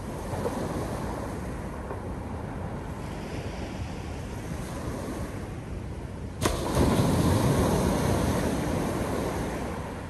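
North Sea surf washing steadily. About six seconds in there is a sharp click, and then a louder wave breaks and washes in for a few seconds before easing off.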